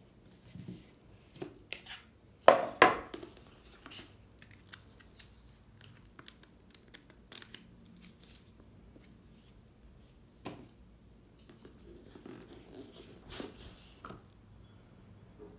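Hands opening a round cardboard gift box and handling the card insert and paper booklet inside: scattered rustles and scrapes of card and paper, the loudest a pair of knocks about two and a half seconds in, with another sharp click about ten seconds in.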